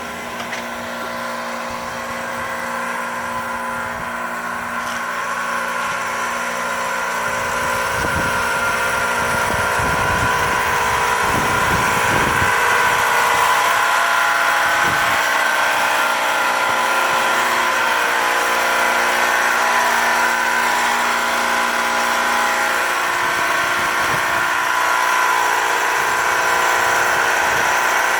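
Heat pump running loudly: a steady mechanical hum with a whine of several pitches. It grows louder over the first dozen seconds, then holds steady.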